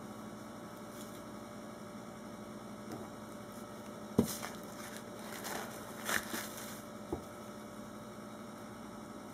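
Handling noise at a wooden wire soap cutter: a sharp knock about four seconds in, then a few softer knocks and scrapes as the soap loaf is set against the wire, over a steady mains hum.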